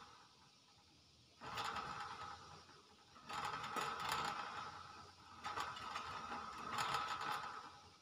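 Common hill myna making hoarse, cough-like sounds: three bursts, each a second or two long, with short pauses between.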